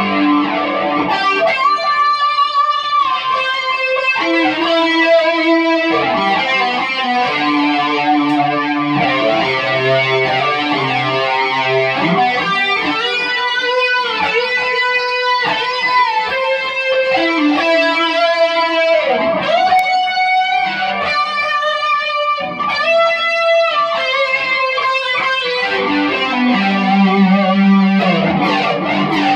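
Electric guitar playing a single-note lead through a Big Muff fuzz, an Electric Mistress flanger and two chorus pedals into two amplifiers, one a Yamaha RA100. Long sustained notes with string bends.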